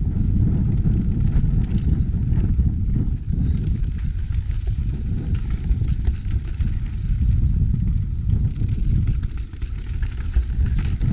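Mountain bike rolling fast down a dirt trail: a heavy, uneven rumble of wind buffeting the camera microphone and tyres on dirt, with scattered clicks and rattles from the bike over rough ground.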